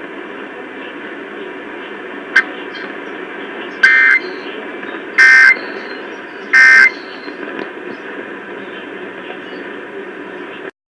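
Emergency Alert System end-of-message data bursts over a radio: three short, loud, screeching two-tone digital bursts about 1.3 seconds apart, over steady radio static. They mark the close of the alert test.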